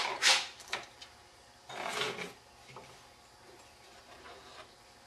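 Handling noise from a homemade Stirling engine's displacer cylinder assembly, thin copper sheet and glass, being picked up and set down on the bench: a few sharp scrapes and rattles at the start, another scrape about two seconds in, then faint small taps.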